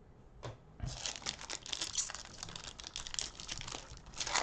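Cellophane wrapper of a 2020-21 Prizm basketball card cello pack being torn open and crinkled by hand, a dense crackling that starts about a second in.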